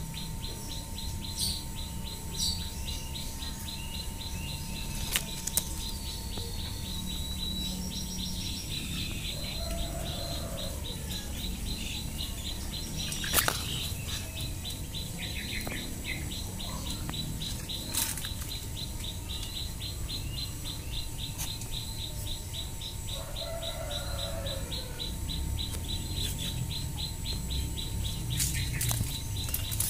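Garden ambience: a rapid, steady train of high-pitched chirps runs throughout, with a couple of lower bird calls and a few sharp clicks from handling.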